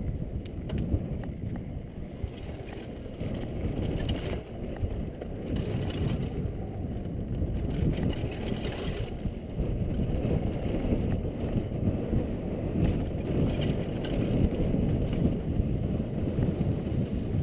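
Wind rush and the low rumble of a downhill mountain bike's tyres and frame over a rough dirt trail at speed, picked up by a helmet-mounted camera, with faint knocks from the bumps.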